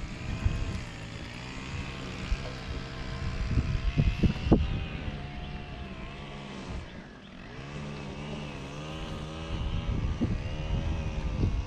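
A boat motor running with a steady hum whose pitch wavers up and down, with a few low thumps around four seconds in.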